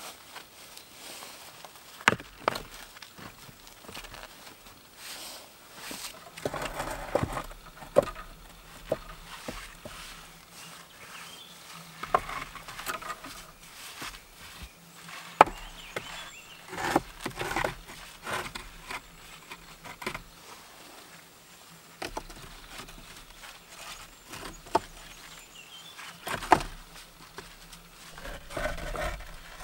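Flat stones knocking and scraping against one another as they are stacked into a dry-stone wall. Sharp clacks come at irregular intervals, with shuffling and rustling between them.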